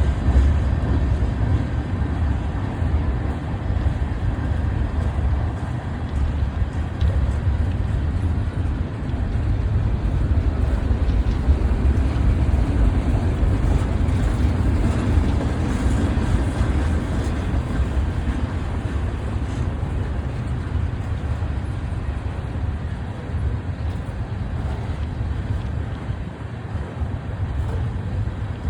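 BNSF train rolling past, a steady low rumble.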